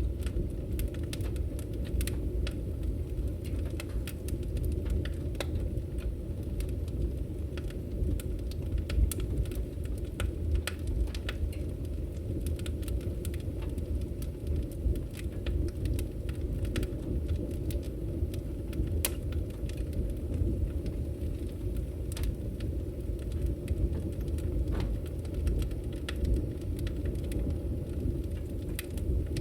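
Wood fire burning in a fireplace: a steady low rumble of flames with scattered, irregular sharp crackles and pops.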